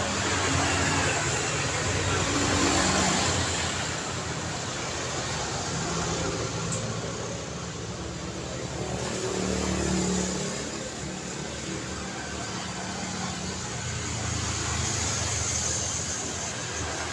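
Road traffic: cars and other vehicles passing one after another, a steady hum of tyres and engines that swells as each one goes by, loudest about three seconds in and again around ten seconds.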